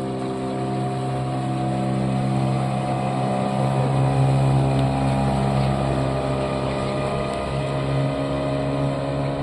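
Outboard motor of a small, loaded wooden fishing boat running at steady speed as the boat passes, growing louder to about four seconds in, then easing off a little.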